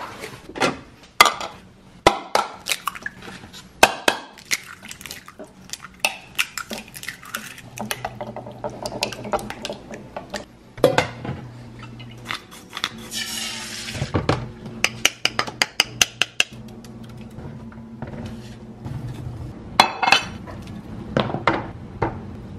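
Kitchen handling sounds during cooking: repeated clinks and knocks of a pan, dishes and utensils, with a brief hiss near the middle.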